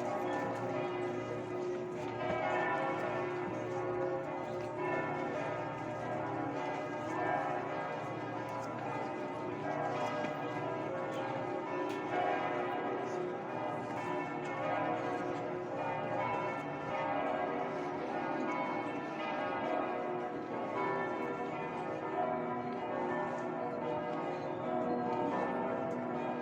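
Church bells ringing continuously, one strike after another with the tones overlapping and ringing on.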